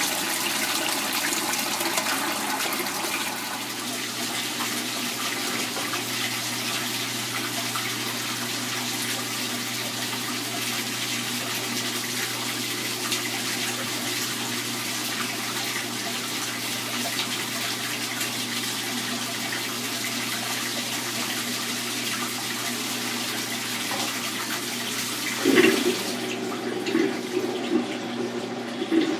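Water pouring steadily into the tub of a Kenmore KLA7924FQ0 top-load washer as it fills for a rinse cycle, with a low steady hum underneath. Near the end the rush of water cuts off and louder, uneven sounds follow.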